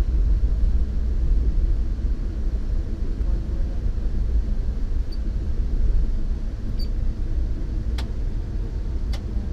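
Passenger train running at speed, a steady low rumble heard from inside the carriage, with two sharp clicks near the end.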